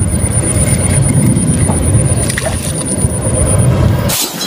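A steady low rumbling roar with a thin, high, steady whine over it, then about four seconds in a sharp shattering crash, a breaking-glass sound effect, that drops to a brief silence.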